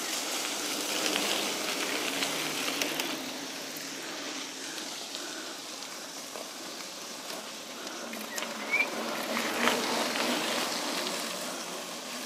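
Mountain bike tyres rolling over a rough dirt road, with wind on the microphone and a few knocks and rattles from the bike.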